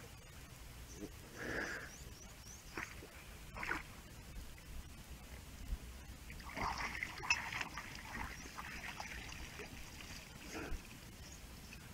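Faint water lapping and splashing against a small wooden boat's hull, with a few short, faint distant animal calls.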